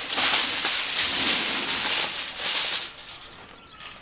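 Sheets of aluminium kitchen foil crinkling and rustling as they are handled and folded, stopping about three seconds in.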